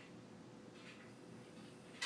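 Near silence in the pause between a sleeping chocolate Labrador's snores, with only a faint breath a little under a second in.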